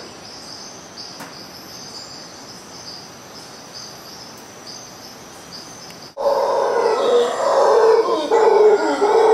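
Insects chirp steadily at a high pitch. About six seconds in, after an abrupt break, mantled howler monkeys start howling loudly in a deep, rough chorus that goes on to the end.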